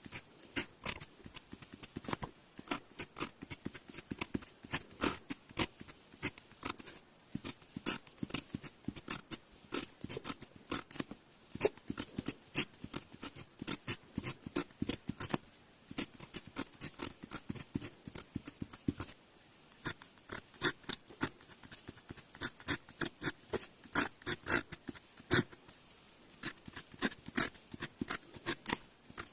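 Glass pen nib scratching on paper in quick, short strokes while writing kanji, with a brief pause about two-thirds of the way through.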